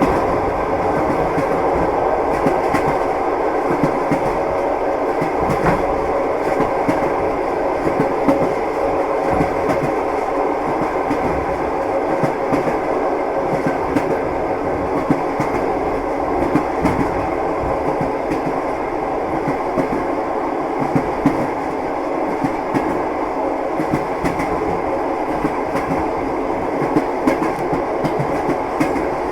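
Train wheels clattering over rail joints, with the steady rumble of a moving railway carriage and scattered short knocks throughout.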